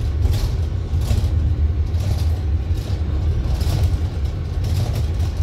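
Inside a Wright StreetLite single-decker bus, heard from a passenger seat: a steady low engine and road rumble, with faint hissy rattles coming and going about once a second.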